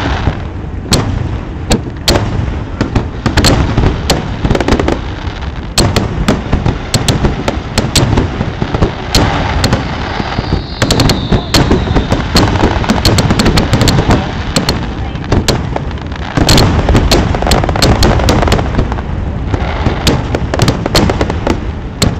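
Fireworks finale barrage: aerial shells bursting in rapid, overlapping succession, a constant run of booms and sharp cracks over a deep rumble, with a brief falling whistle about ten seconds in.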